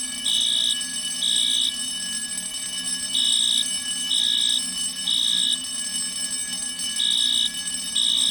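Building fire alarm sounding the temporal-three evacuation pattern: three high-pitched beeps of about half a second each, the group repeating about every four seconds, over a steady drone.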